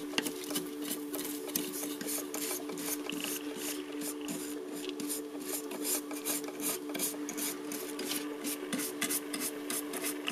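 Wire brush scrubbing softened, stripped paint off a die-cast metal model car body: quick repeated scraping strokes, several a second, with a steady low hum underneath.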